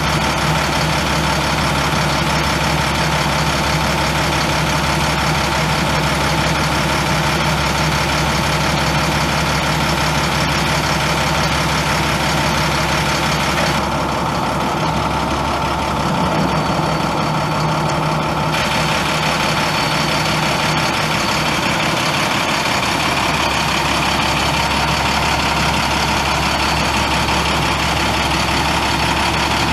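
International MaxxForce 10 9.3-litre inline-six turbo diesel idling steadily in a bucket truck.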